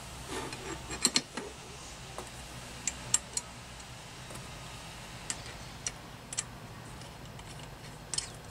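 Small metal fasteners (bolts, washers, nuts) clicking and clinking against the steel bike rack as they are handled and fitted by hand: scattered sharp ticks, a quick pair about a second in and a cluster around three seconds, over a low steady hum.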